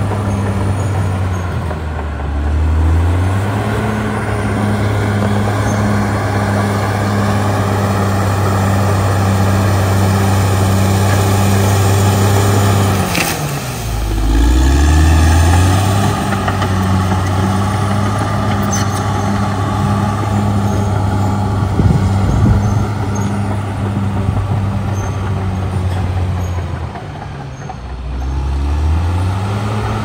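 CAT D6R XL bulldozer's diesel engine working under load, with its pitch sagging and picking back up three times as the dozer pushes and changes direction. There is a single sharp clank midway.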